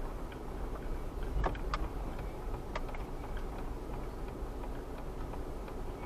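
Car driving, heard from inside the cabin: a steady low road and engine rumble, with a few sharp clicks between about one and three seconds in.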